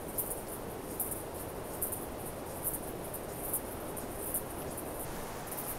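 Insects chirping in short, high-pitched pulses at an even pace of about one a second, over a steady background hiss.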